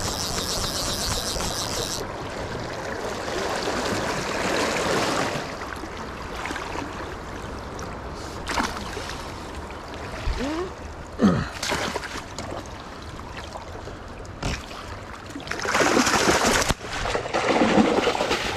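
Kenai River water rushing and lapping around a wading angler, with scattered knocks and rustles from handling the rod and aluminium landing net, and a louder stretch of rushing near the end.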